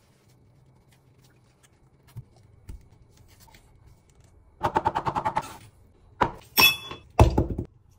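Kitchen food-prep sounds. About halfway through comes a quick run of about a dozen light taps, then a sharp clink that rings briefly and a heavier thunk near the end.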